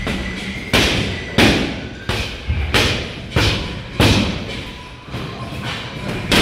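Boxing gloves striking focus mitts in quick succession: about seven sharp slaps, roughly one every two-thirds of a second, with a short pause before a last punch near the end.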